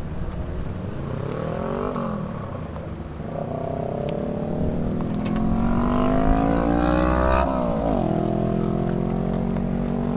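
A car engine accelerating. Its pitch rises and falls briefly, then climbs steadily for about four seconds, drops sharply about seven and a half seconds in, and carries on at a lower pitch.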